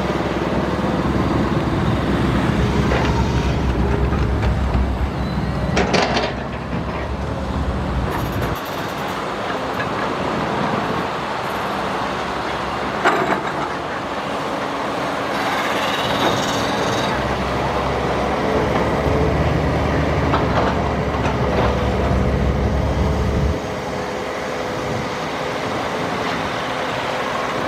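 Matador crawler excavator's diesel engine running, pulling harder for long stretches as it digs and swings, with hydraulic whine. Two short knocks come about six and thirteen seconds in.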